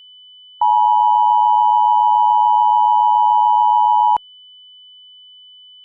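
Emergency Alert System attention signal: the two-tone alarm (853 and 960 Hz sounded together) starts about half a second in, holds steady for about three and a half seconds and cuts off sharply. A faint steady high tone runs underneath throughout.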